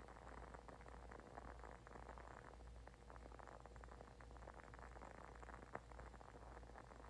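Near silence: faint crackly room tone with a low hum, and one sharp click near the end.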